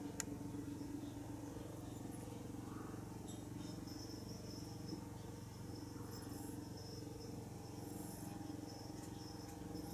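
Mother cat purring steadily while her kittens nurse, a low continuous rumble. Faint small clicks and ticks come and go over it.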